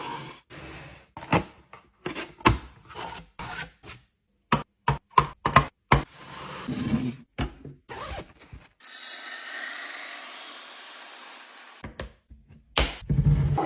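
Drinks and sweets being handled and set into a fridge: a quick series of clicks and knocks from containers being placed, then about three seconds of steady hiss, then a few more knocks near the end.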